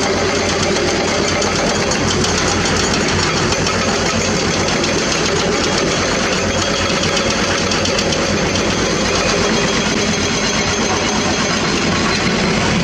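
Diesel engines of several hydraulic excavators running steadily while digging limestone, a continuous dense drone.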